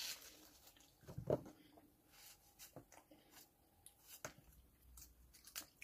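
Faint, scattered soft squishes and clicks of ripe jackfruit being pulled apart by hand and trimmed with a knife, the loudest about a second in.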